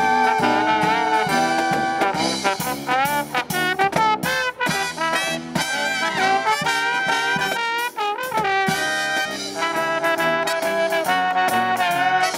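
Live brass marching band playing: trumpets, trombones and saxophones over sousaphone and drums.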